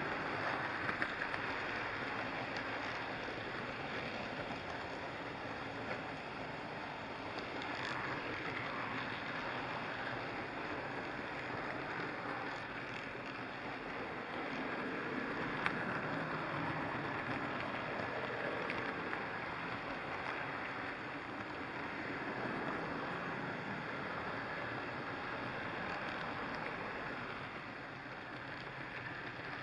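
HO scale model train running along the track, heard from a camera riding on it: a steady rolling rumble of wheels and motor, with an occasional click.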